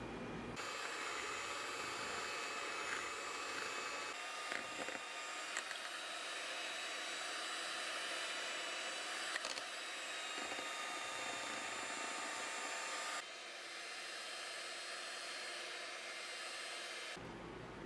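Electric hand mixer running steadily, its beaters whipping cream in a glass bowl chilled over ice. It starts just after the opening, dips slightly in level about two-thirds of the way through, and stops shortly before the end.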